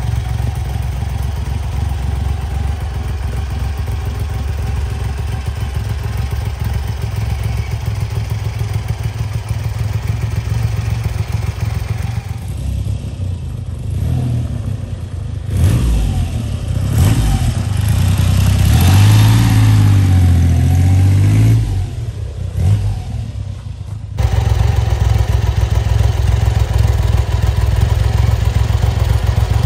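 Triumph Trident T150 three-cylinder engine ticking over steadily, heard close up. About twelve seconds in it gives way to the bike being ridden toward the camera, the engine revving up and down and loudest around the middle, before the steady close-up idle returns a little after two thirds of the way through.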